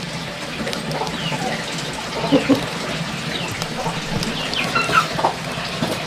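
Chickens clucking: a few short, scattered calls over a steady low background, the loudest a quick pair about two seconds in and more near the end.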